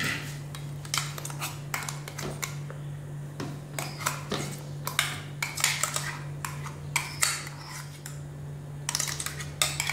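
A spatula scraping and tapping mango puree out of a plastic jar into a bowl, giving irregular clicks and scrapes of spatula on plastic, over a steady low hum.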